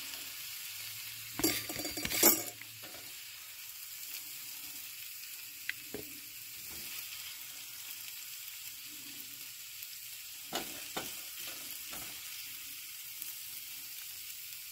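Sautéed vegetables sizzling in a pan with a steady hiss, while a plastic serving spoon scrapes and clatters, loudest about a second and a half to two and a half seconds in, with a few lighter taps later.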